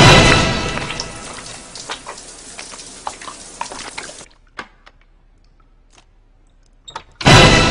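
A sudden loud horror-film sting at the start, fading out, over shower water that hisses steadily and cuts off abruptly about four seconds in. A few faint clicks follow, then a second loud sting hits near the end.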